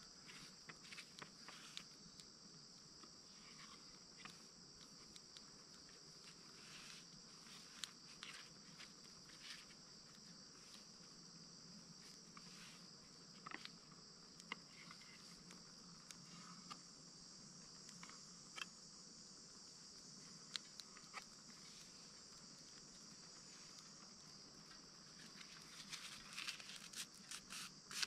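Faint, steady, high-pitched chorus of insects, with scattered small clicks and taps through it.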